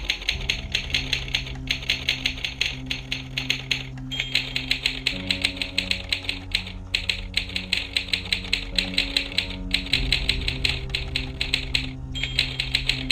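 Typing clatter from an animated typewriter prop: rapid runs of key strikes, several a second, breaking off briefly every couple of seconds. Under it plays background music of held low notes that shift twice.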